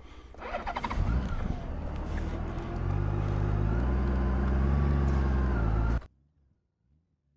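Large touring motorcycle's engine running as it pulls away, its pitch stepping up as it gains speed. The sound cuts off suddenly about six seconds in.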